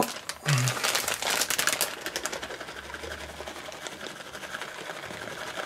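Plastic bag of grated Emmentaler crinkling loudly as it is opened and handled for the first two seconds. A softer rustle follows as the shredded cheese is shaken out of the bag into a bowl.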